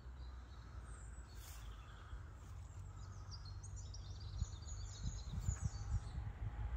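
Outdoor rural ambience: small birds chirping and twittering, most busily in the middle and later part, over a low rumble of wind on the microphone that gusts harder towards the end.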